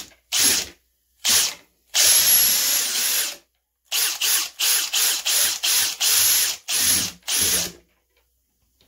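Electric drill spinning a degassing whip in a glass carboy of apple wine, run in about a dozen short trigger bursts with one longer run about two seconds in, then stopping near the end. It is stirring the carbon dioxide left from fermentation out of the wine, which foams up.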